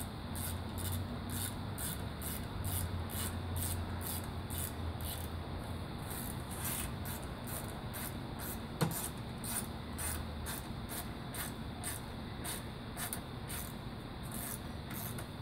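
Hands working on the cooling-fan mounting bolts in a car's engine bay: rubbing and handling sounds, with one small knock about nine seconds in. A high hiss pulses two or three times a second throughout.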